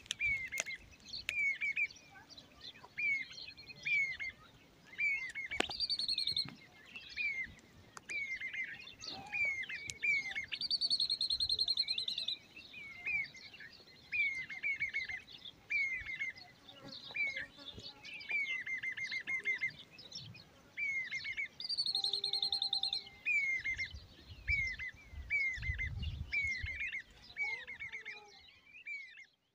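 Small birds singing: short chirping notes repeated about once or twice a second throughout, with three brief rapid trills.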